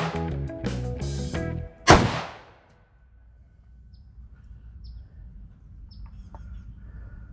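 A single rifle shot from an AK-pattern rifle about two seconds in, over background guitar music that stops just after it. Then a low outdoor rumble with a few faint bird chirps.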